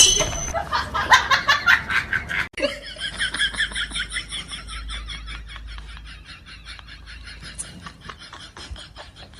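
Rhythmic laughing in short repeated pulses. It breaks off sharply about two and a half seconds in, then a second run of laughing starts and slowly fades away.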